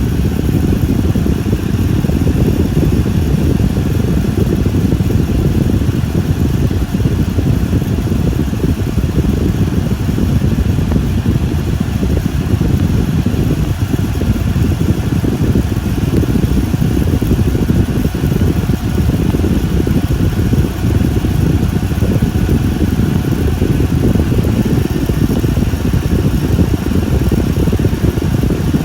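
Car engine idling with the air conditioning running: a steady, unbroken low rumble mixed with the rush of the blower fan.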